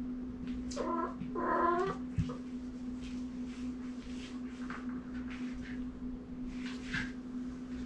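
Kitten meowing twice in quick succession about a second in, the second call longer and wavering, over a steady low hum.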